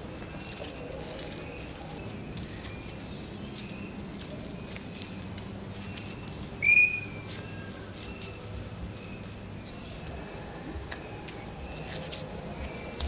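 Crickets chirping in a steady, high trill. About seven seconds in comes one short, loud, high whistle that falls slightly in pitch.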